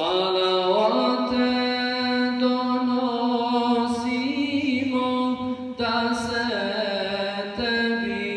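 Male voice chanting a slow, melismatic Islamic recitation, starting abruptly and holding long notes that slide from pitch to pitch, with a brief break a little before six seconds in.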